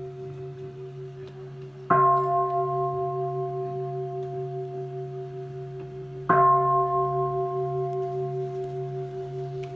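A large Buddhist bowl bell struck twice, about four seconds apart. Each strike rings on in several steady tones and fades slowly, and the ring of an earlier strike is still sounding at the start. It is struck at the close of the monks' chant.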